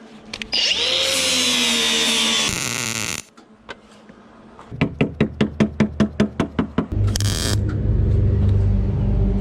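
A power tool runs with a whir for about two and a half seconds and stops abruptly. A car engine then cranks with a rapid, even chugging of about seven strokes a second, catches, and settles into a steady low-pitched idle.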